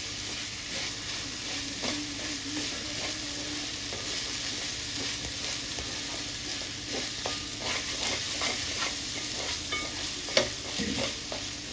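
Cooked rice being stirred into mint masala in a pan on low heat: a steady sizzle with frequent scrapes and taps of the spoon against the pan, one sharper tap near the end.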